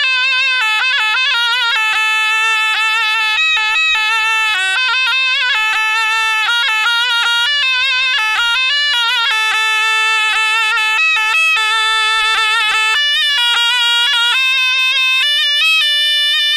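Zurna played solo: one loud melodic line that moves in quick ornamented steps and trills, with no drum beneath it.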